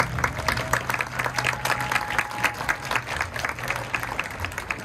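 Crowd in the stands applauding: dense, rapid clapping that thins out toward the end.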